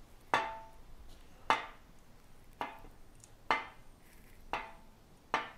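Lower triple clamp of a 2022 Indian Chief being swung lock to lock on its freshly fitted steering head bearing, knocking against the frame's steering stops at each end: six sharp metal knocks about a second apart, each with a brief ring. The steering turns freely on the new bearing.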